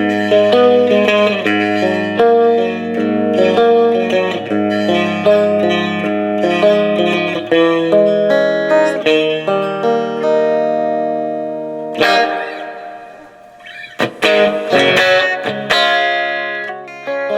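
Electric guitar played through a hand-built clone of a Fender blackface Vibrolux Reverb tube amp, noodling ringing chords and single notes. The playing dies away to a lull a little past the middle, then resumes with sharp strums.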